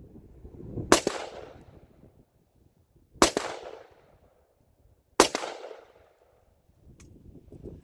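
AR-15-style rifle fired three single semi-automatic shots about two seconds apart, each sharp crack trailing off in an echo.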